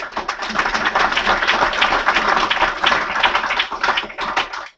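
Audience applauding: dense clapping that thins to a few scattered claps and stops near the end.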